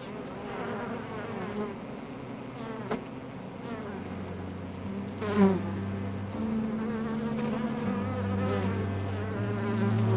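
Many honeybees buzzing on a comb: a steady hum that shifts in pitch now and then. There is a single sharp tick about three seconds in and a louder, brief buzz a little after five seconds.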